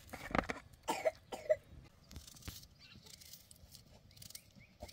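A person coughing: a few short, rough coughs in the first second and a half, and one more near the end.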